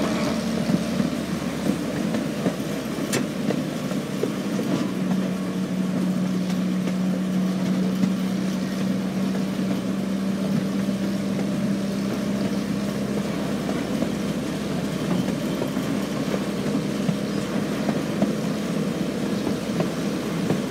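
A 1/3-scale park railroad train running along its track: a steady engine hum with a held low tone that grows stronger about five seconds in, over the rolling rumble of the cars. There is a single sharp click about three seconds in.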